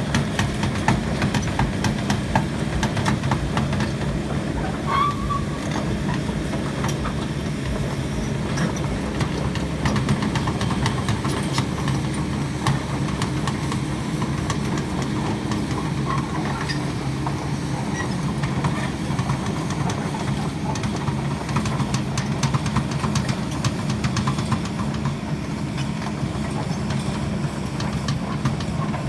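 Heavy-equipment diesel engine running steadily under load, with a continuous fine metallic clatter over the engine note.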